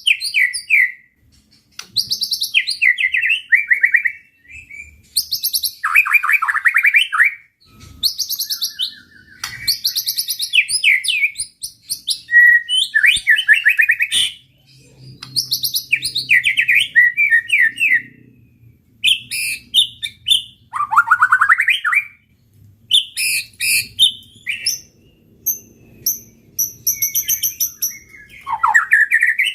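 White-rumped shama singing in full, continuous song: a quick run of varied phrases made of fast trills, sweeping whistles and very high notes, with short pauses between them.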